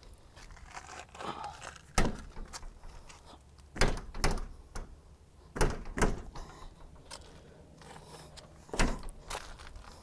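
A metal door hit in a series of sharp thuds: one about two seconds in, then three pairs of quick knocks, each pair less than half a second apart.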